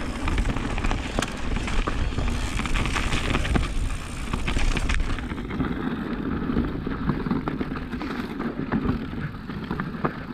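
Electric mountain bike rolling down a rocky trail: continuous rumble of tyres and wind on the microphone, with frequent sharp knocks and rattles from the bike going over rocks.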